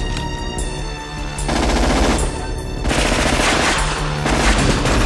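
Submachine gun firing rapid automatic bursts, starting about a second and a half in, over background music.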